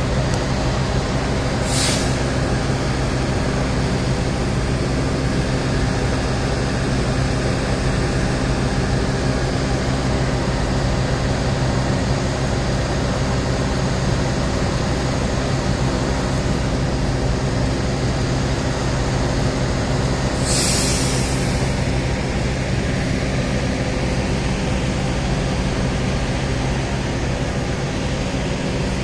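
Diesel engine of a standing train running at idle with a steady low hum. A brief hiss of air comes about two seconds in, and a longer, louder air-brake hiss comes about twenty seconds in.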